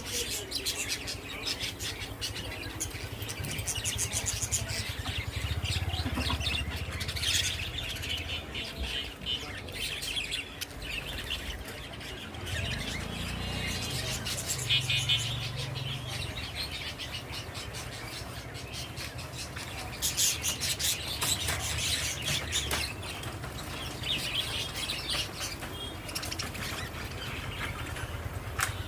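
Small birds chirping and twittering in repeated bursts, with wing flutters and a steady patter of fine clicks.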